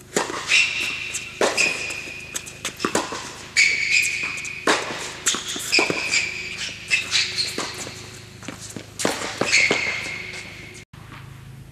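Tennis rally on an indoor hard court: a serve, then racket strikes on the ball and ball bounces coming every second or so. Between the hits come high squeaks of up to a second, typical of sneakers sliding on the court surface.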